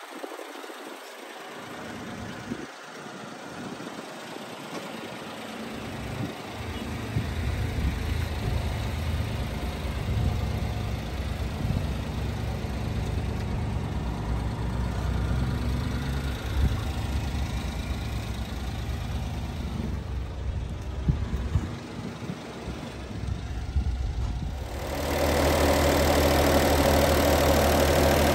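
Honda Acty mini truck's small three-cylinder engine idling steadily. Near the end it gets much louder and clearer, heard up close with the engine exposed.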